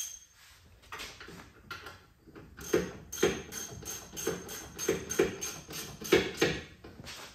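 Ratchet wrench clicking through a series of strokes as a 21 mm socket runs down the rear brake caliper bracket bolts. The strokes are faint at first, then louder from about three seconds in, at roughly two a second.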